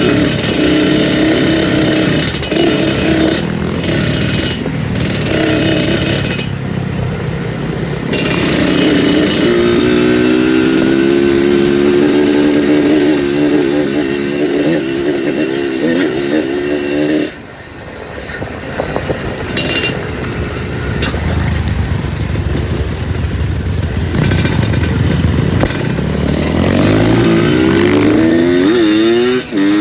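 Two-stroke trail motorcycle being ridden, its engine rising and falling in pitch with the throttle, cutting back several times early on, dropping off sharply a little past halfway, and revving up again near the end.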